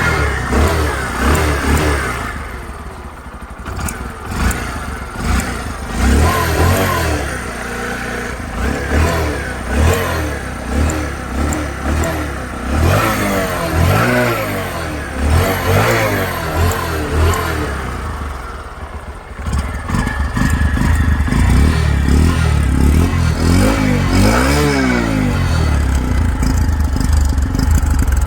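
Bajaj Platina 110 motorcycle engine running through its exhaust and being revved again and again, each rev rising and falling in pitch. From about twenty seconds in it runs louder and more steadily, with one more rev near the end.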